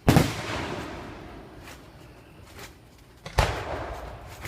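Two aerial fireworks shells bursting, one right at the start and a second about three and a half seconds in, each booming and then rumbling away over a second or so, with a few smaller pops in between.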